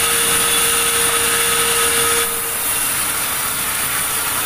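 Sawmill saw running and cutting through timber, a loud steady machine noise with a held whine; a lower steady tone drops out and the sound eases slightly about two seconds in.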